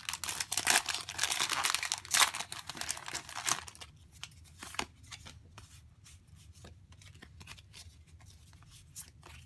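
Foil booster pack wrapper crinkling as it is torn open, for about the first three and a half seconds; then quieter handling of the trading cards, with a few light clicks and taps.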